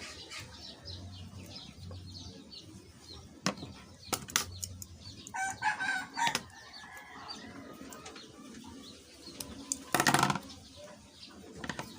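Domestic fowl in the background: a chicken call about five seconds in and a short loud flurry of wing flapping near the end, with a few sharp little clicks of handling in between.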